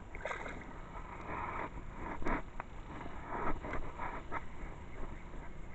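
Barefoot footsteps scuffing and sloshing through shallow water and wet sand, then up a grassy bank, with irregular rustling and a few sharp clicks.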